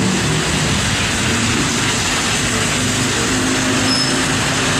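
Double-decker bus engine running as the bus pulls along a wet city street, over a steady noise of traffic and tyres on the wet road.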